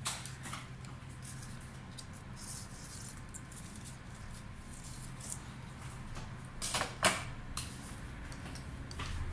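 Cut foliage rustling as leafy stems are handled and set into a florist's arrangement, with scattered small clicks and a sharper pair of knocks about seven seconds in, over a steady low hum.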